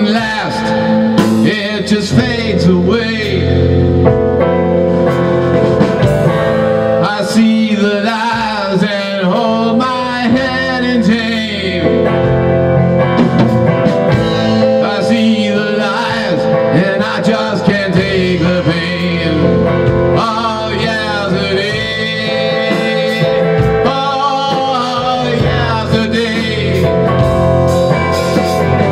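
Rock band playing live: electric guitars over a drum kit in a blues-rock song, the lead guitar playing bending melodic lines with no words sung.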